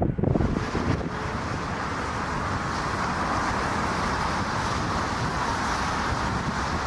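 Jet airliner engines running with a steady, even noise, heard outdoors. Near the start a heavier low rumble fades out.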